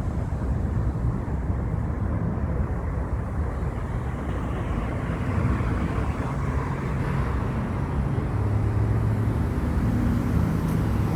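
Metro rail train running, a steady low rumble. A low hum comes in about halfway through and grows louder.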